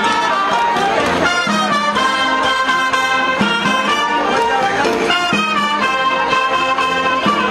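A street orchestra playing Latin dance music, with brass to the fore.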